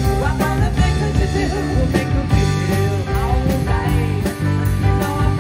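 Live rock band playing with a steady drum beat: female lead vocal over electric guitar, bass guitar and drum kit.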